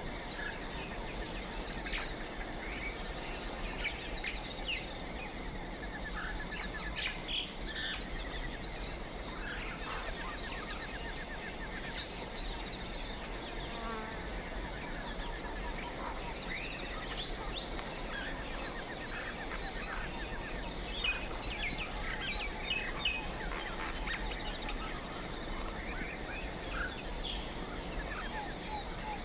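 Wild ambience of insects trilling and buzzing with small birds chirping: many short chirps and rapid ticking trills over a steady background hiss.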